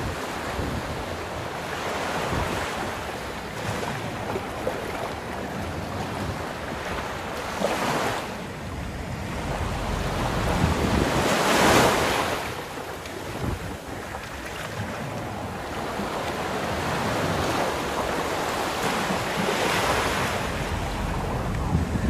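Sea waves breaking and washing up a sandy beach, the surf swelling and fading several times, loudest about halfway through. Wind buffets the microphone with a low rumble underneath.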